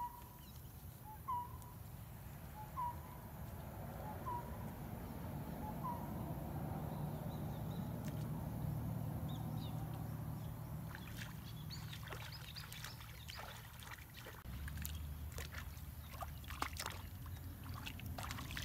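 Wading through a shallow muddy pond: water sloshing and swishing around the legs, then many small splashes and drips from about eleven seconds in as hands work in the water. An animal's short call repeats about every second and a half over the first few seconds.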